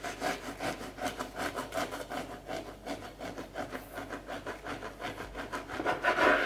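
Knife sawing through the crust and soft crumb of a homemade white toast loaf on a wooden cutting board: quick back-and-forth strokes, about four or five a second, with a louder stroke near the end.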